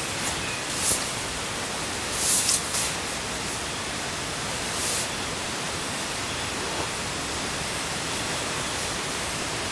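A down sleeping bag's nylon shell rustling in a few brief bursts as it is rolled up and squeezed into its stuff sack, over a steady hiss.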